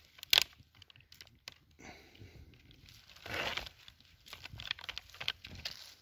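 Rustling and crunching of dry pine needles and twigs on the forest floor, with a sharp snap about a third of a second in and a longer rustle about halfway through.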